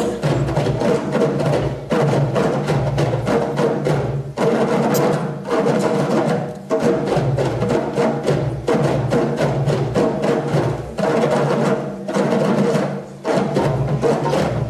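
West African drum ensemble: many djembes struck by hand together in a fast, dense, steady rhythm.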